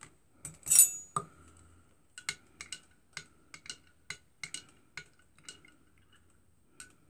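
A metal teaspoon stirring a stimulant solution in a glass jar of water, clinking lightly against the glass about four times a second for a few seconds. One louder, ringing glass clink and a knock come first, about a second in.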